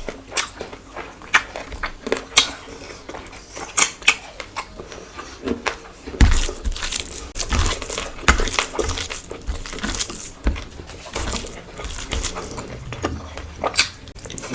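Close-miked eating: chewing with wet mouth smacks and crunches coming in quick, irregular succession. The sounds grow denser and louder about six seconds in.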